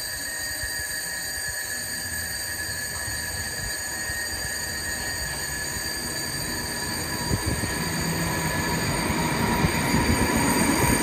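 Trenitalia E464 electric locomotive hauling a regional train approaching and passing close, with a steady high-pitched whine and squeal. It grows louder from about seven seconds in, and a few wheel knocks come near the end.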